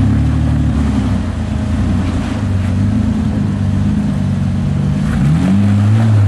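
Rock-crawling Jeep Wrangler's engine working in low gear as it climbs over boulders, its revs rising and falling with the throttle. There is a quick rise in revs about five seconds in.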